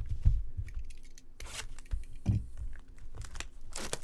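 Trading card packaging being torn open by hand, the wrapper tearing and crinkling in short irregular bursts.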